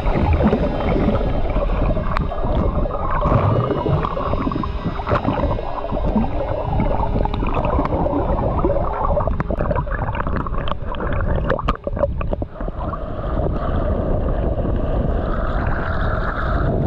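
Sea water heard underwater through a waterproof action camera: a loud, low rushing noise with gurgles, and scattered sharp clicks and knocks around the middle.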